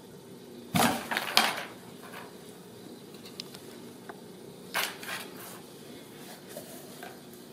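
Cardboard box scraping and rustling as a cat pushes into it and paws inside: a cluster of scrapes about a second in, a shorter one near five seconds, and a few faint ticks between.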